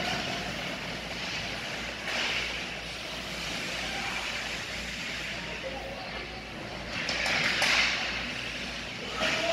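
Indoor ice hockey rink during play: skates scraping across the ice in a steady hiss, with two louder swells of scraping, about two seconds in and near the end, and faint distant voices.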